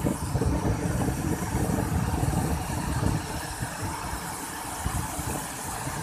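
Roar of a wide waterfall in flood pouring over a rock ledge into a churning pool: a steady rushing noise over a deep, uneven rumble that eases slightly about halfway.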